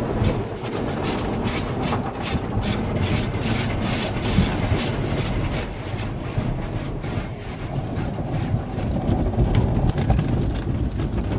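Automatic car wash heard from inside the car: soft-cloth wash strips rubbing and slapping rapidly against the windows and body over a steady low rumble. The slapping thins out near the end.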